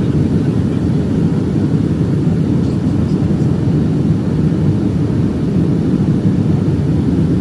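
Steady cabin noise inside a Boeing 757-232 airliner in descent: a constant low rumble of airflow and engines, with no change in level.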